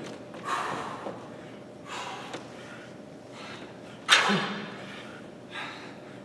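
A man breathing hard under exertion during dumbbell Romanian deadlifts: four forceful exhales spaced about one and a half to two seconds apart, the one about four seconds in the loudest.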